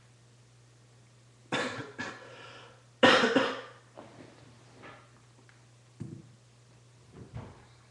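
A person coughing in a short fit: two coughs about one and a half seconds in, the loudest about three seconds in, then several weaker coughs and throat sounds. A faint low steady hum runs underneath.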